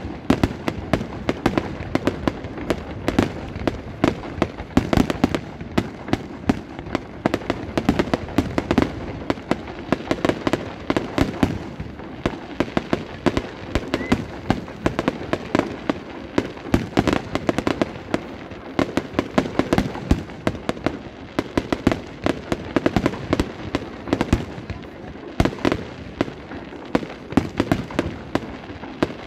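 Fireworks display: a continuous barrage of aerial shell bursts, many sharp bangs a second, easing off slightly now and then.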